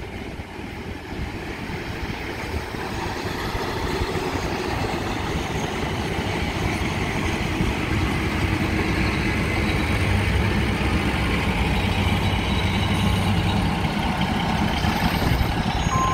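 Daewoo four-car diesel multiple unit pulling into a station. Its diesel engine and wheels on the rails grow louder as it approaches and runs past close by. The sound then settles into a steady low engine rumble as it slows.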